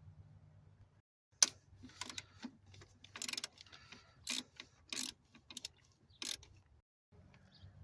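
Socket ratchet and metal hand tools clicking and clinking while working on the bolts of an ignition coil and its cover: a series of sharp clicks, the first the loudest, with a quick run of ratcheting clicks midway.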